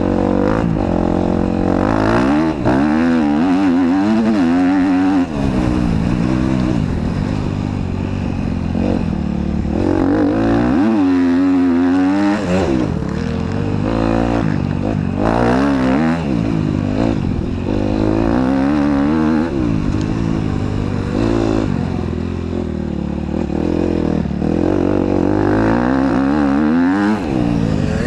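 KTM motocross bike's engine, heard close from the rider's helmet, revving up and dropping back over and over as it accelerates, shifts and rolls off.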